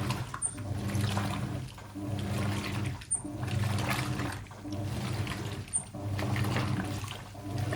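Hoover 800RL top-loading washing machine agitating a comforter in a full tub. The motor hums and the water sloshes in long agitator strokes with a slight pause between them, roughly one stroke every second and a half, as the regular-wash action drags the load through the water.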